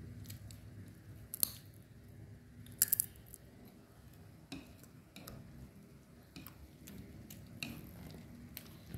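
A person eating fried spring rolls with chopsticks: scattered sharp clicks of the chopsticks and crisp bites, with faint chewing between. The loudest is a quick double click about three seconds in.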